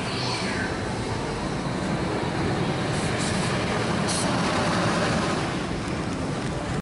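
Incredicoaster roller coaster train running past on its track: a steady rush of noise that grows a little louder toward the middle.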